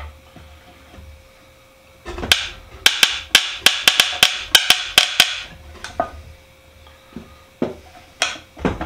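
Sharp taps of a small metal hand tool on the hard wooden vise of an antique stitching horse: a fast run of about a dozen taps starting about two seconds in, then a few single taps near the end. The taps work at the old wooden parts to loosen them.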